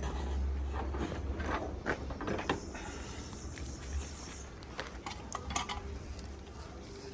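Scattered light clinks and knocks of car parts being handled and moved, over a low rumble.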